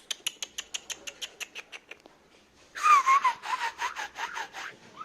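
A person makes quick tongue clicks, about nine a second, then a louder, warbling, kissy whistle in rapid pulses. These are the mouth sounds used to call a Shih Tzu puppy and catch its attention.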